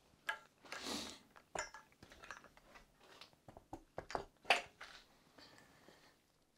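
Irregular light knocks and clinks of things being handled and moved about, with a brief rustle about a second in and the sharpest knock about four and a half seconds in.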